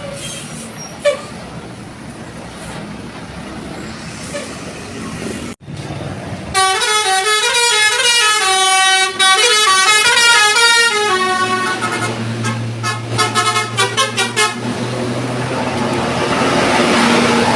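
Indonesian tour bus 'basuri' telolet musical horn playing a quick tune of stepped notes, starting about six and a half seconds in after plain traffic noise, with a run of rapid short notes past the middle. A low steady hum runs beneath the horn in its second half, and the noise swells near the end as a bus passes.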